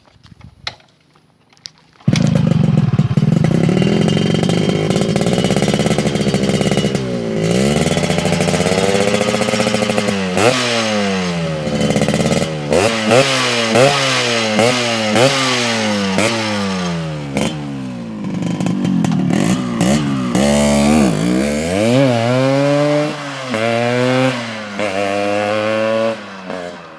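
Motorcycle engine through a racing-style aftermarket exhaust, cutting in abruptly about two seconds in and running steadily for a few seconds. It is then revved over and over in quick blips, the pitch rising and falling about once a second, and eases off near the end.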